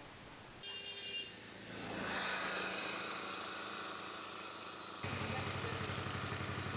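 Hiss, then outdoor background noise; about five seconds in, a small engine cuts in, running steadily at idle with a low, even hum.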